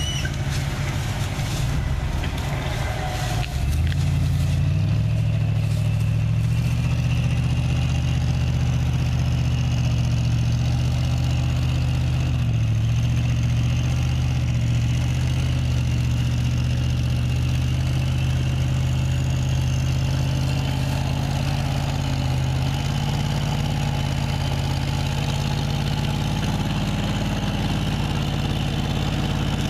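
Ford F-150 pickup's engine running steadily. About three and a half seconds in it steps up to a louder, higher, even note and holds there, with a brief dip in pitch partway through.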